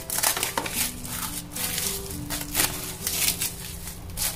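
Plastic cling film crinkling and crackling in short bursts as it is pressed and smoothed around a loaf tin, over faint background music.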